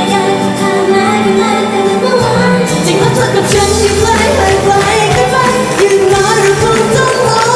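Live pop song sung by a girl idol group's female voices into handheld microphones over the backing music; the bass and drums come in about two seconds in and the song builds to full volume.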